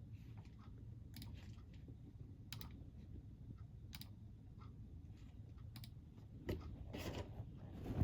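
Close-miked chewing of a crunchy snack: a few sharp crunches spaced a second or so apart over a low steady rumble, then a longer, louder stretch of crunching near the end.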